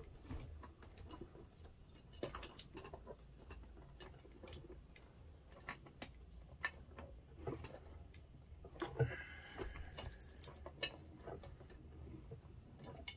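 Hands handling a rubber tire and inner tube: scattered light clicks, taps and rubbing as the tube and its valve neck are worked into an Inmotion V12 HT electric unicycle's tire, with a brief squeak about nine seconds in.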